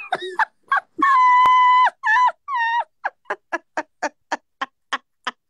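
Animal-like calls: a long steady call about a second in, two shorter calls after it, then a run of quick short calls, about four a second.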